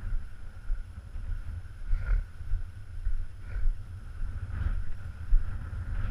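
Wind buffeting the microphone, an uneven low rumble, with a few faint short sounds about two, three and a half, and four and a half seconds in.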